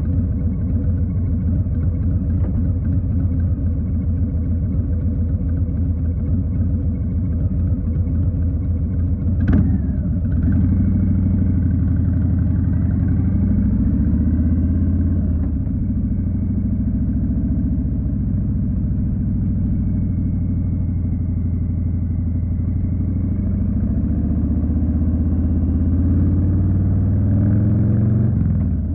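2020 Harley-Davidson Street Bob's V-twin engine running under way, with a sharp click about a third of the way in. After the click the revs rise and fall in steps as the bike accelerates and changes gear, dropping again near the end.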